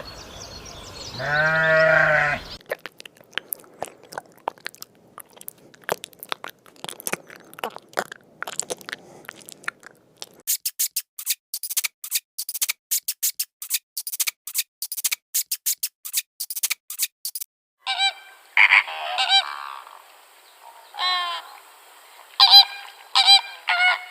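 A run of animal sounds. First a single pitched call, then several seconds of irregular clicks and ticks that turn faster and sharper about halfway through, then a series of short pitched calls near the end.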